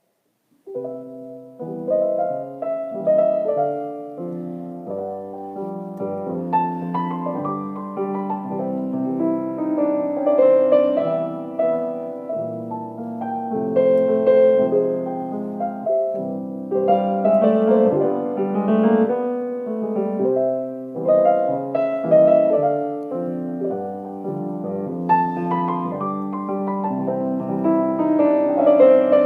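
Solo piano playing a slow piece of chords and melody, mostly in the middle register, beginning about a second in.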